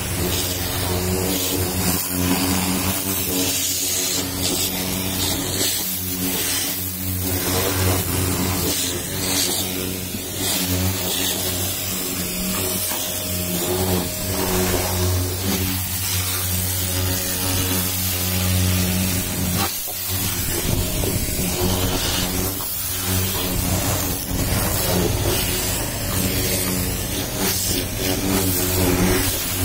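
Pressure washer running, its motor giving a steady hum under the hiss of the water jet spraying the car's body, with a brief break about two-thirds of the way through.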